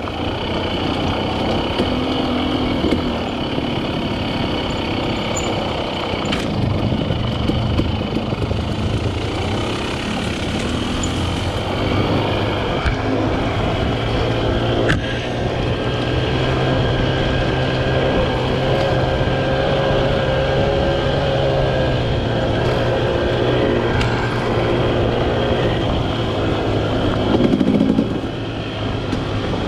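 Quad bike engine running under way, heard from on board, its pitch rising and falling as the throttle changes.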